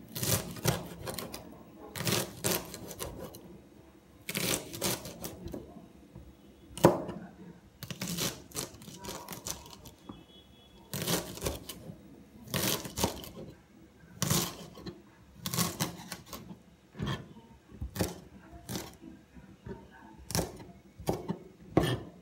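Kitchen knife chopping garlic chives on a cutting board: runs of quick, sharp knocks of the blade against the board, broken by short pauses.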